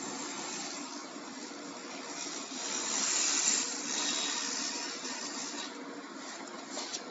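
Laser cleaning machine ablating rust from a steel adjustable wrench: a steady hiss over a low hum, growing louder for a couple of seconds in the middle of the pass.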